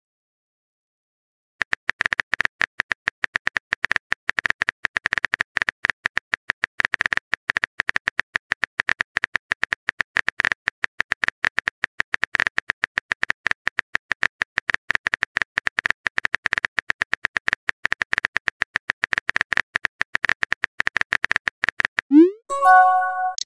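Simulated keyboard-typing sound effect from a texting-story app: rapid, irregular clicks, several a second, starting about one and a half seconds in and running for about twenty seconds. Near the end a short rising pop-and-chime marks a message being sent.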